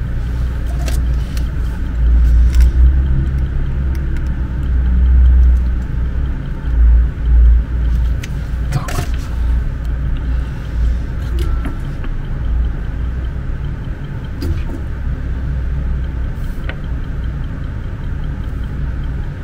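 A steady low rumble that swells and eases, with occasional light clicks and taps as small wires, a board and tools are handled on a workbench.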